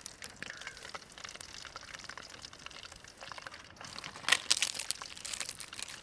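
Whole quail frying in hot oil in a metal pan: a dense patter of crackles and pops, with a louder flurry of pops about four seconds in.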